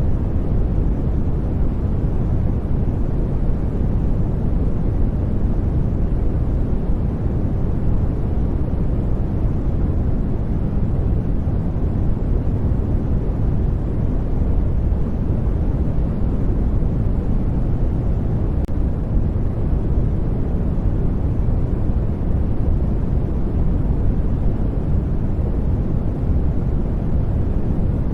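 Steady study-noise track: a deep, even rushing noise, weighted to the low end, with no changes or events.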